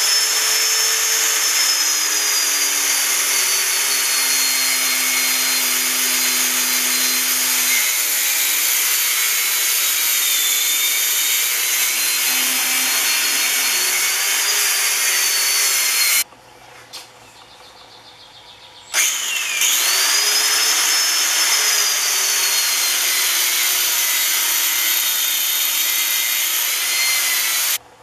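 Angle grinder with a cut-off wheel cutting through the copper windings of a motor stator: a loud, steady high whine over grinding noise. The grinder stops a little over halfway through, then spins back up about three seconds later and cuts on.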